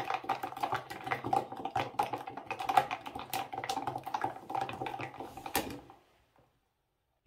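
Metal spoon stirring quickly in a tall plastic beaker of liquid, a rapid run of clinks and knocks against its sides that stops about six seconds in.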